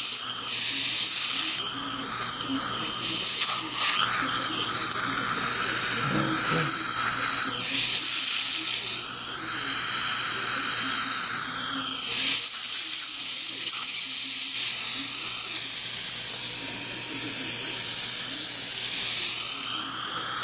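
Dental saliva ejector suction hissing steadily as it draws air and fluid from the mouth, its tone shifting now and then as the tip is partly covered.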